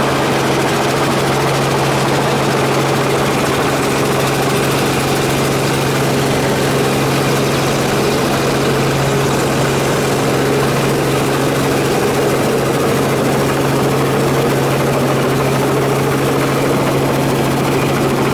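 Model camera helicopter's rotor and motor running steadily, heard from on board: a constant hum over a steady whirr, as it descends to hover low over the ground.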